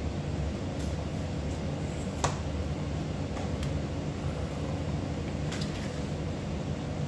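A steady low machine hum in the room, under a few light clicks and taps of plastic chainsaw housing and handle parts being handled and fitted; the sharpest click comes a little over two seconds in.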